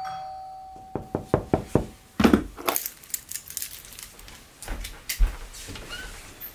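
A ping pong ball bouncing on a hard surface: a run of sharp taps about a second in that come faster and faster as the bounces die down, with a clear ringing tone fading away under them at the start. A louder clatter follows around two seconds in, then scattered knocks and low thumps.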